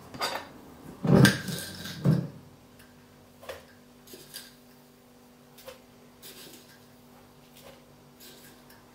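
Clattering and clinking as a glass swing-top storage jar of sugar and a spoon are handled over a plastic mixing bowl, loudest in the first two seconds, then a few soft taps and clicks over a faint steady hum.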